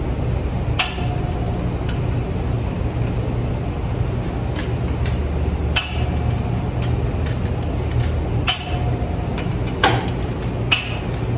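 Click-type torque wrench on engine bolts, giving a sharp metallic click about five times, some with a brief ring, as each bolt reaches its setting on a first pass at 100 foot-pounds in a star pattern. A steady low hum runs underneath.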